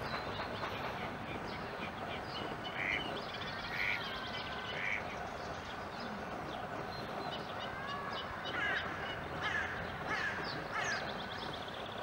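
Eurasian coot chicks calling: three short harsh calls about a second apart, then a quick run of short high calls in the second half, over a steady background hiss.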